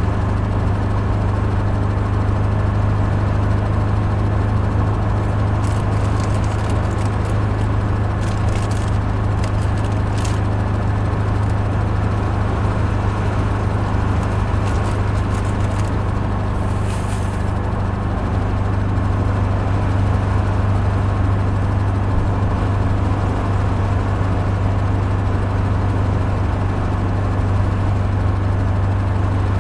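Inside the cabin of a 1972 Volkswagen Super Beetle cruising steadily on the highway: the air-cooled flat-four engine's constant low drone mixed with road noise. A few faint clicks come through around the middle.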